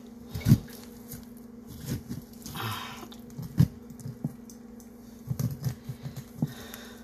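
A kitchen knife stabbing and carving into a raw beef roast on a wooden cutting board, with hands pressing the wet meat: scattered soft knocks and squishes, a cluster of them about five seconds in, over a steady low hum.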